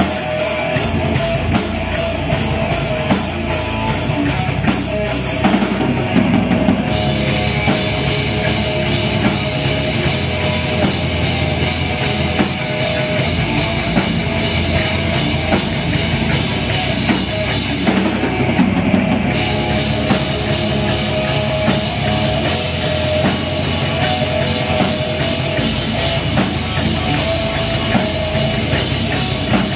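Live heavy metal band playing loud, with distorted electric guitar, bass guitar and a driving drum kit; the cymbals drop out briefly twice.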